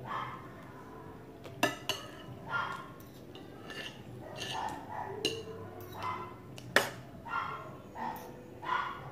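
Spoon and fork clinking and scraping on a ceramic plate while eating, mixed with a run of short, repeated pitched calls roughly once a second in the background.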